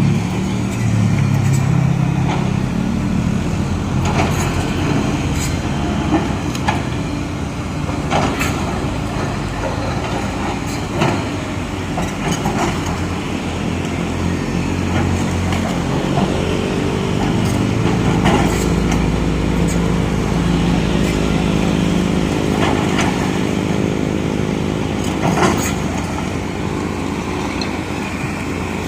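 Heavy diesel engines running, with sharp knocks and clatter scattered through. About halfway through, a steady engine drone at an even pitch comes in and holds.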